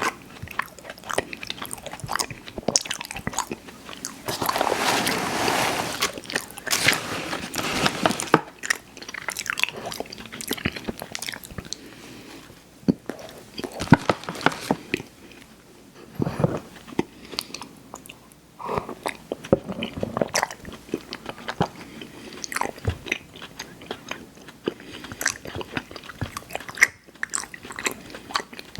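Close-miked eating sounds: bites into and chewing of sweet snacks, with many short sharp mouth clicks and some crunch. A denser stretch of noise comes about four to eight seconds in, and it goes quieter for a while around the middle.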